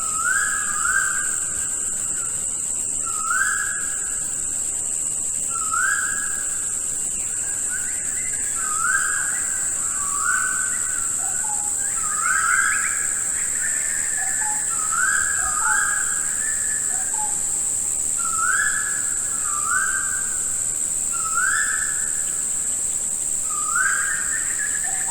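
Rain-forest ambience: a bird repeats short clear whistled notes, often in pairs, every second or two, over a steady high-pitched insect drone.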